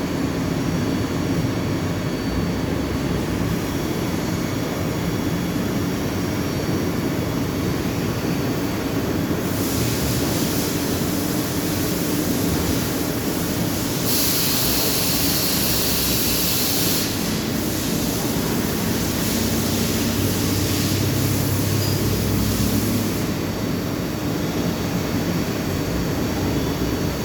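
DMG Gildemeister CTX 310 eco CNC lathe running: a steady machine hum whose pitch shifts as it works, with a hiss that comes in about a third of the way through and is loudest around the middle.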